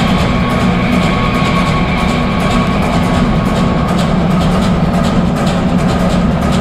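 Music for a stage dance routine, with a dense low drone and long held tones.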